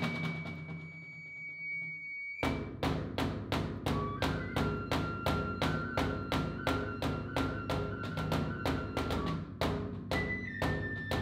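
Ceremonial music: a wind instrument holds long notes, stepping to a new pitch now and then, and from about two seconds in a drum strikes at an even beat of roughly three a second.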